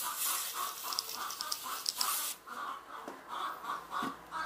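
Water pouring from a watering can onto sawdust in a metal wheelbarrow, stopping a little over two seconds in. A rapid, even chattering, about four a second, runs underneath throughout.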